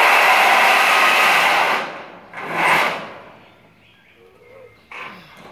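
Ribbed sheet-metal roof panel scraping as it is slid across the steel carport frame: a long rasping rush of about two seconds, then a shorter one in the middle and a brief one near the end.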